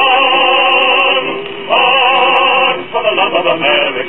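A 78 rpm record of a patriotic song playing on the record player: voices hold two long notes with vibrato, each about a second long, with a short break between them.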